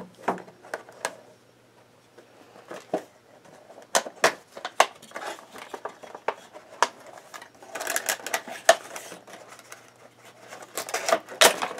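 Cardboard Funko Pop box being handled and opened by hand: scattered taps, clicks and scrapes of the cardboard, bunched in a few short flurries.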